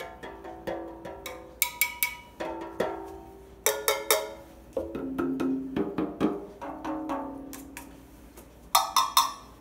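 Homemade balloon drums, tin cans and an oatmeal container with balloons stretched over their open tops, tapped one after another. Each tap gives a short ringing note, and the drums sound at different pitches, with quick runs of taps about two seconds, four seconds and nine seconds in.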